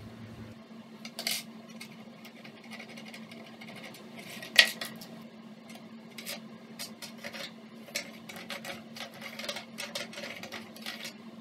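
Perforated metal strap used as a compass, clicking and clinking against its pivot pin and the pencil while a pencil point scratches across OSB board to draw a circle. Many small clicks throughout, with a sharper click about a second in and a louder clack about four and a half seconds in.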